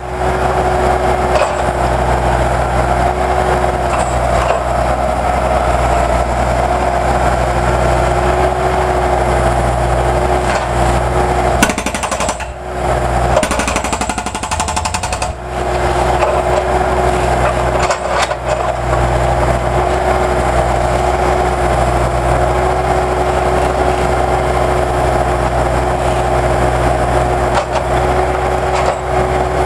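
Jackhammer breaking up concrete in a continuous rapid hammering, which stops for about three seconds midway and then resumes.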